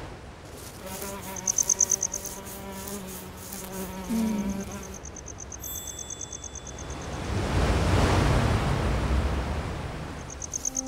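Insects trilling in bursts of rapid high-pitched pulses, over a low humming tone in the first few seconds. About seven seconds in, a broad rush of noise like wind swells up and fades away, and it is the loudest sound.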